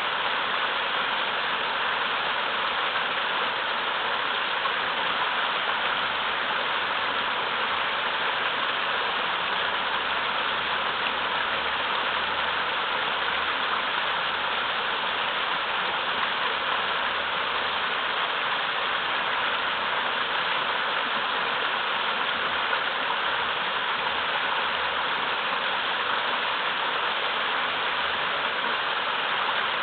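Small waterfall in a mountain river, water rushing fast over large boulders in a steady, even splashing hiss.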